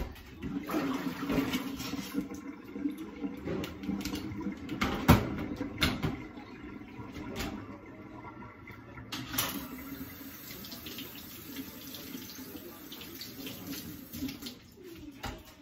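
Kitchen tap running into the sink while dishes are washed by hand, with the clinks and knocks of crockery being handled; the sharpest knock comes about five seconds in.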